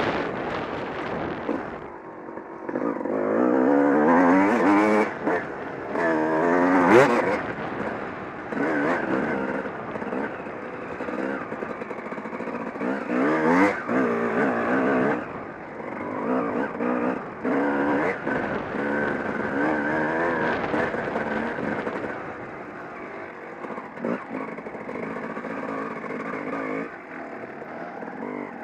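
Off-road dirt bike engine being ridden hard over rough ground, its pitch rising and falling again and again with the throttle. A few sharp knocks cut through the engine note.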